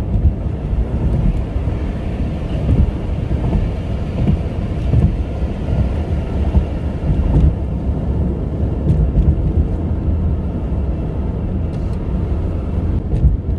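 Car driving at speed: a steady low rumble of road and wind noise.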